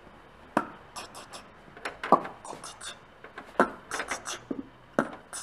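A child beatboxing a simple beginner-level beat through cupped hands: a handful of sharp mouth thumps like a kick drum, at uneven spacing, mixed with short hissing "ts" sounds like a hi-hat.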